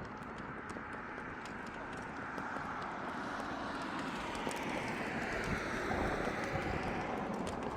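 A vehicle driving past on asphalt, mostly tyre noise rather than engine, swelling to its loudest about six seconds in and then starting to fade. A few light ticks sound in the first second.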